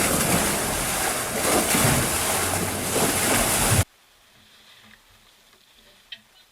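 Wind buffeting the microphone over the rush of water around a boat under way, cutting off abruptly almost four seconds in to a faint quiet with a single click near the end.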